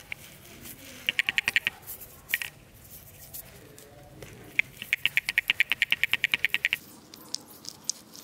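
Two runs of rapid, even mechanical clicking, about ten clicks a second: a short run about a second in and a longer run from about five seconds to nearly seven.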